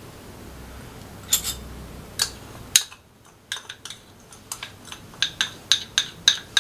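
Light taps and clicks as a clear cup of cornflour is tapped and knocked out over a glass bowl of water: three spaced taps at first, then a quicker run of about three taps a second in the second half.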